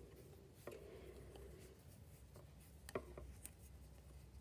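Near silence with faint handling noise of a metal crochet hook and yarn being worked into an elastic hair tie: soft rubbing and two small ticks, one before a second in and one about three seconds in.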